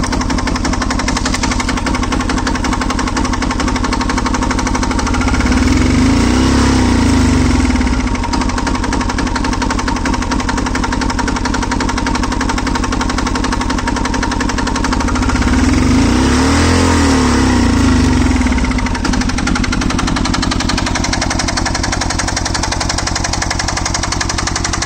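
Diesel engine of a motorcycle running with a rapid, even knock. It is revved up and back down twice, about six seconds in and again around sixteen seconds.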